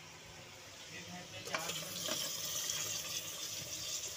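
Wet, freshly washed meat tipped into hot oil and fried onions in an aluminium pressure cooker: a clatter about one and a half seconds in, then a steady, loud sizzling hiss.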